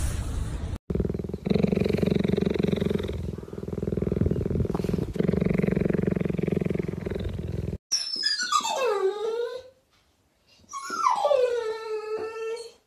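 A cheetah purring close up, a steady rumbling purr in two long breaths. Then a pit bull-type dog gives two long whining cries, each falling steeply in pitch.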